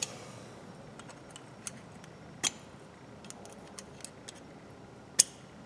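Small metal parts and hand tools clicking and clinking as a 1/4-inch ratchet is worked apart by hand, with scattered light ticks and two sharper clicks, one about halfway through and one near the end.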